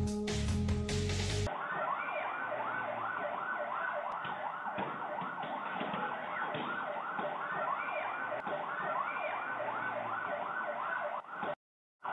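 Emergency vehicle siren on a fast yelp, its pitch rising and falling about three times a second, over street noise. Background music plays for the first second and a half, and the sound drops out briefly near the end.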